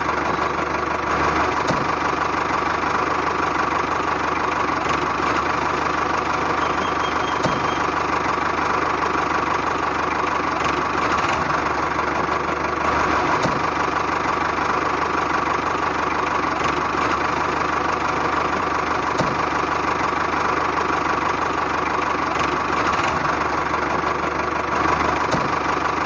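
A motor running steadily at an even pitch, with a constant whine over its hum.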